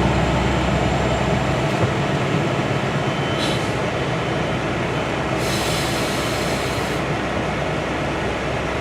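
CN freight train rolling past close by: a steady rumble of rail cars' wheels on the rails. A short high-pitched burst comes about three and a half seconds in, and a longer one from about five and a half to seven seconds.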